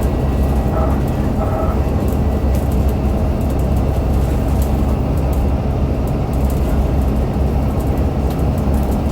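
ADL Enviro500 MMC double-decker bus under way, its Cummins ISL8.9 diesel and ZF six-speed automatic drivetrain giving a steady low drone with light rattles. The higher axle whine, the weird axle sound, cuts out at the start and comes back only twice, briefly, around a second in.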